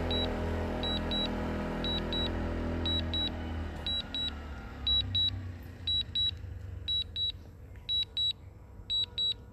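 Drone controller app's low-battery alarm: high double beeps repeating about once a second, warning that the aircraft's battery is low and it is returning home. Under it, a low hum with steady tones fades away over the first four seconds.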